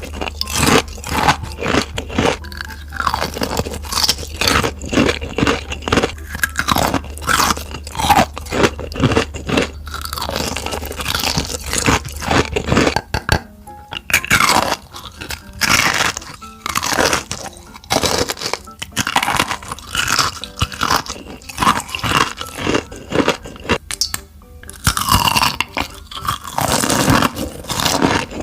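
Person eating crunchy food, biting and chewing with many sharp crunches in quick, irregular succession, over background music. A low hum under the first half cuts off about halfway through.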